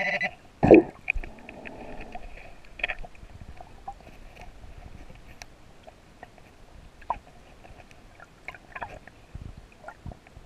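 Underwater: an underwater metal detector's steady beeping tone stops just at the start, then a loud dull thump about a second in, a brief rush of stirred water, and scattered faint clicks and gurgles as the hand digs a coin out of the sand.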